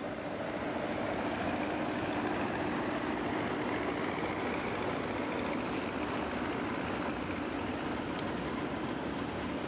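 Large patrol vessel's engines and machinery running with a steady drone and a faint hum in it as the ship comes alongside to berth.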